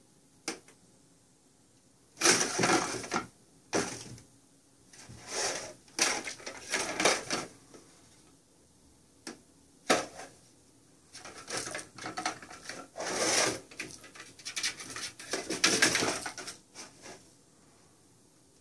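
Plastic circular-track cat toy rattling and scraping in irregular bursts as cats paw at the mouse inside it through the slots in its rim.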